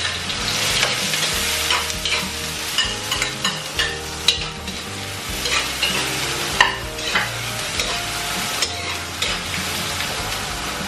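Chopped onion sizzling in hot oil in a large metal pot as it is sautéed, with a metal ladle scraping and clicking against the pot as it is stirred, sharpest about four and six and a half seconds in.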